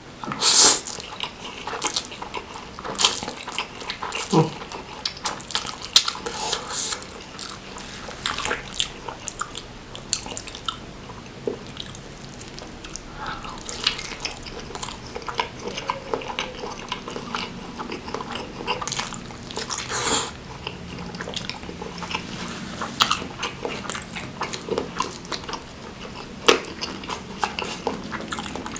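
A person eating spicy noodles close to the microphone: repeated wet biting and chewing mouth sounds with irregular short smacks.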